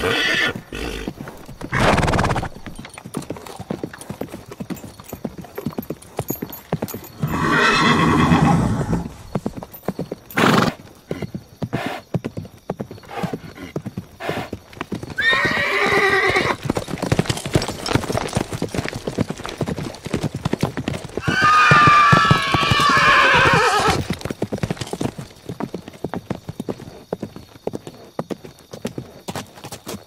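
Horse hooves clip-clopping in a rapid, continuous patter, with a horse neighing twice, once about halfway through with a falling pitch and again, longer, a few seconds later. A shorter, lower horse call comes about a quarter of the way in.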